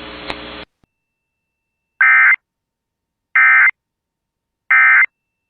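Emergency Alert System end-of-message tones: three identical short bursts of buzzy digital data, each about a third of a second long and about 1.3 s apart, marking the close of the alert. A faint steady hiss of the broadcast cuts off just before them.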